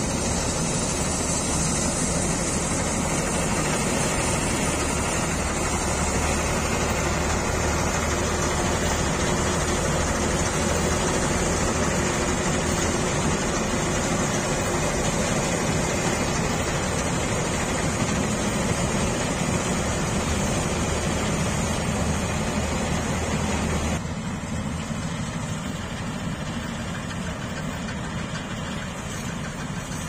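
Tractor-mounted combine harvester, a Panesar unit on a New Holland tractor, running while cutting wheat: a steady diesel engine drone under the noise of the threshing machinery. The sound turns suddenly quieter near the end.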